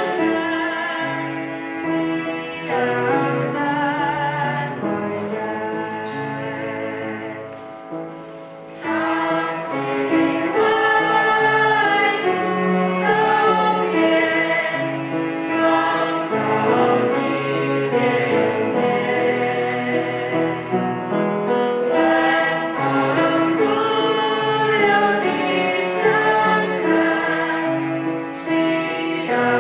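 Small student choir of mixed voices singing in unison, with a bowed cello accompaniment. It grows softer up to about eight seconds in, breaks off briefly, then comes back fuller about nine seconds in.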